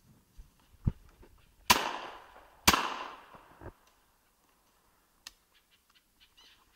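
Two shots from a Rizzini .410 shotgun about a second apart, each a sharp crack trailing off over about a second, preceded by soft thuds of walking steps.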